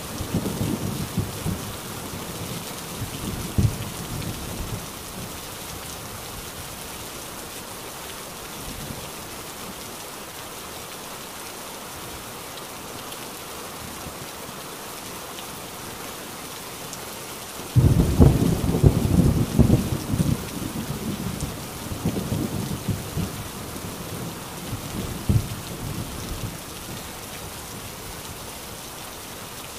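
Heavy rain falling steadily. Thunder rumbles and fades out over the first few seconds. About 18 seconds in, a sudden loud thunderclap breaks into a long uneven rumble that dies away over several seconds.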